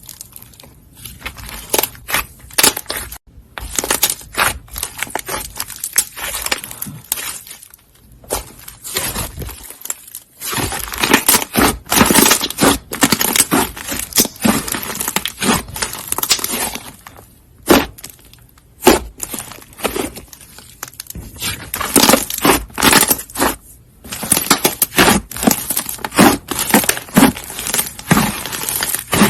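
Slime being squeezed, poked and stretched by hand, making rapid crackling and clicking in bursts, with a few short pauses between handfuls.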